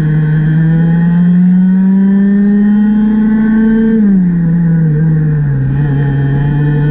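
IAME X30 125cc two-stroke kart engine at racing speed. The revs climb steadily along a straight, drop sharply about four seconds in as the kart slows into a corner, and then hold lower through the turn.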